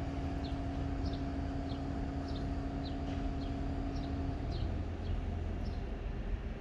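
Steady low rumble from railcars standing at the station, with a steady hum that cuts off about two-thirds of the way through, and a bird chirping short high notes about twice a second.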